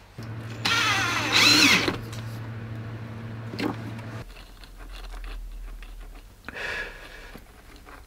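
Ryobi cordless drill running in short bursts, its motor whine rising and falling as the trigger is worked. Quieter handling noises follow in the second half.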